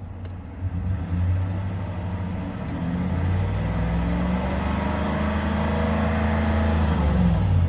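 Chevrolet Silverado's 355 hp V8 running on propane autogas, revved from idle up to about 3,000 rpm and held there, easing back down near the end, heard from inside the cab.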